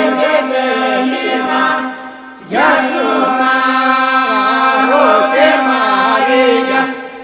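Traditional Epirote polyphonic singing. Voices hold a steady drone beneath a lead voice that winds and ornaments the melody. The singing falls away about two seconds in and re-enters strongly half a second later.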